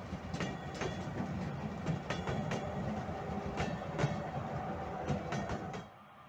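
Two coupled BB 75000 diesel-electric locomotives passing close by, with a steady low engine and rolling rumble and sharp irregular clicks from the wheels over the rail joints. The sound breaks off suddenly near the end, dropping to a faint background.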